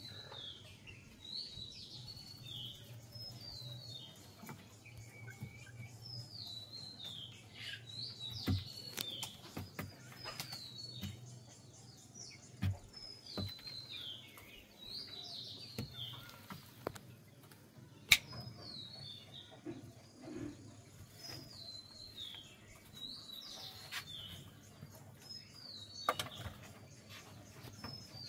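High bird chirps repeat every second or two, each a short falling note, over a low steady hum. A few sharp clicks come through, the loudest about 18 seconds in.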